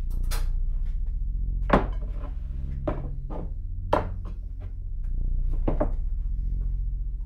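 Several sharp knocks and clunks of objects being handled and set down on a wooden workbench, the loudest about two and four seconds in, over a low steady drone.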